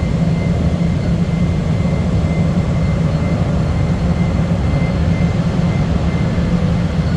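Chicago CTA Blue Line train heard from inside the car: a loud, steady low rumble, with a faint steady high tone that fades out near the end.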